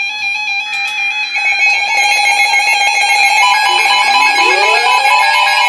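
NOAA weather radio alert alarms going off for a severe thunderstorm warning: several beeping and steady electronic tones at different pitches layered together, more joining in, with rising siren-like sweeps starting about three and a half seconds in.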